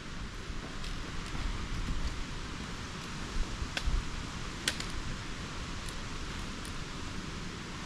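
Steady rustling of a hiker walking a forest trail, with a few sharp clicks about four and five seconds in and low wind rumble on the microphone.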